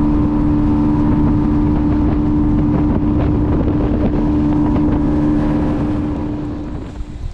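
Bass boat's outboard motor running steadily at cruising speed, one steady hum, with wind buffeting the microphone. It drops away near the end.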